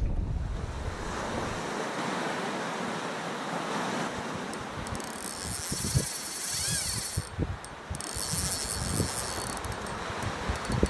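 Steady rush of sea water and wind, with a brighter hiss coming in about halfway through.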